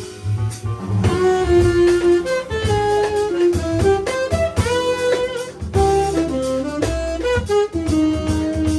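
Live jazz combo playing: a saxophone carries a melodic line of held notes that step up and down in pitch, over upright double bass, drum kit, piano and electric guitar.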